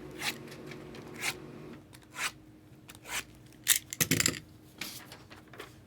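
Short scrapes and rustles of card boxes and packaging being handled and slid on a table, about one a second, with a louder knock and clatter about four seconds in as something is set down.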